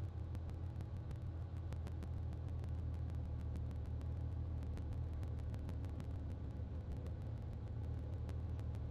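Steady low drone of a Cirrus SR20's piston engine and propeller in cruise power on approach, heard from inside the cockpit.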